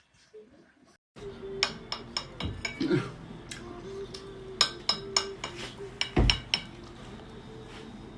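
A run of sharp clinks and clicks, like hard objects knocking together, over a faint steady hum, with two heavier thumps partway through. It starts abruptly about a second in.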